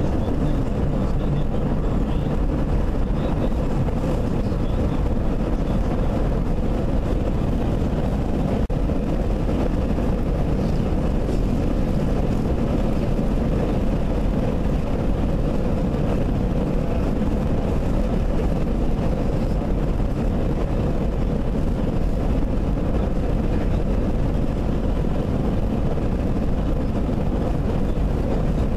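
Steady road and engine noise of a car driving at speed, heard from inside the cabin: an even low rumble with no breaks.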